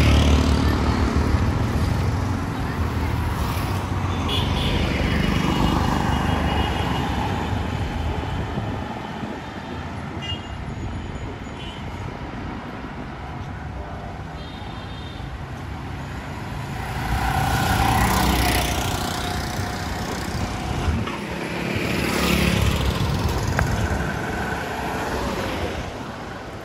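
Street traffic: a series of motor vehicles pass one after another, each swelling and fading, the loudest at the start and about two-thirds of the way through, with a few short horn toots.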